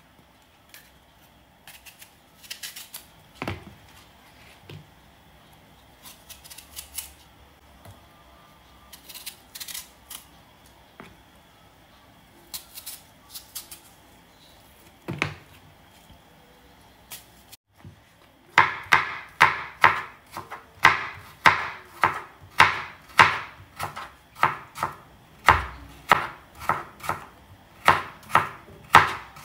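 Kitchen knife dicing an apple: scattered single cuts at first, then from a bit past halfway steady, rapid chopping at about two strokes a second.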